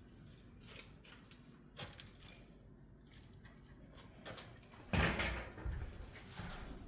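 Scattered small clinks and rattles, then a sudden loud thump with a rustle about five seconds in.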